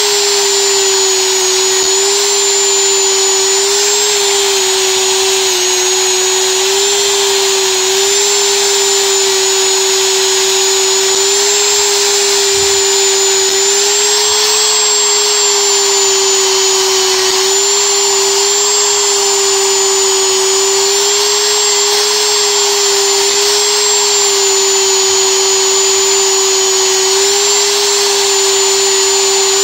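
Dremel rotary tool running steadily, a high whine that wavers slightly in pitch, as its abrasive buffing wheel scrubs rust off steel needle-nose pliers.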